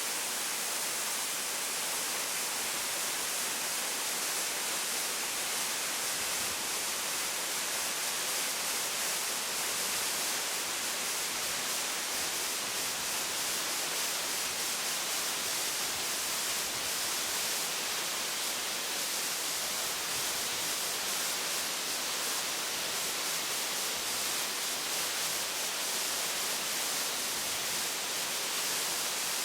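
Two-tier waterfall running: a steady, even hiss of falling water, strongest in the high range.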